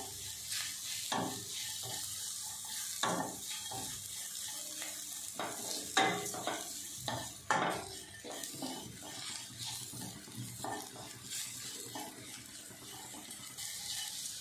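Wooden spatula stirring and scraping sliced onions and crushed whole spices against a stainless steel kadai, with the quiet sizzle of frying in ghee underneath. Irregular knocks of the spatula on the pan, two of them louder about halfway through.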